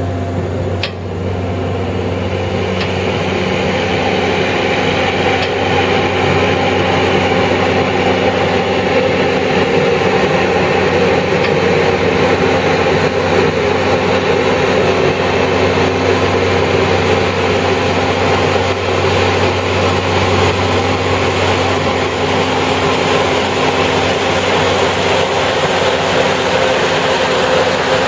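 McCloskey 621RE trommel screener running: a steady engine hum with machinery noise over it, growing a little louder over the first few seconds.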